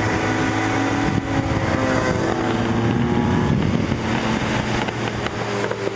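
Motorcycle engine being revved, its pitch rising over a couple of seconds and then settling back.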